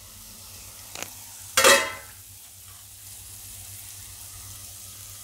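Stainless steel wok lid lifted off and set down, with a light click and then one loud, ringing metallic clank about one and a half seconds in, over a faint steady hiss.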